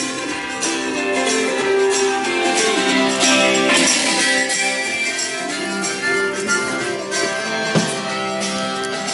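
Music with strummed guitar and other instruments.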